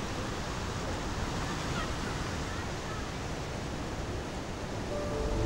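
Ocean surf: waves breaking and washing in as a steady rush of noise. Music comes in near the end.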